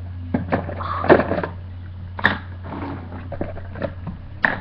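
Clicks and knocks from a toy security locker being handled, with its small door and contents bumping, and a sharp click near the end. A steady low hum runs underneath.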